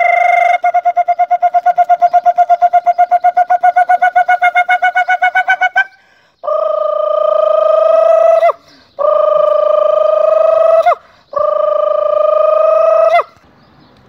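A man imitating an owl's call with his voice: a short held note that breaks into a fast pulsing trill for about five seconds, then three long held hoots of about two seconds each, each ending in a quick downward slide.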